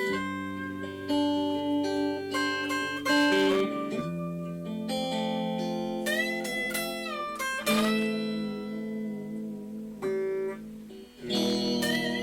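Solo guitar playing a Spanish-flavoured blues in A minor: plucked single-note lines over ringing chords. About six seconds in, a few notes bend or slide in pitch, and just before the end the playing pauses briefly before chords come back in.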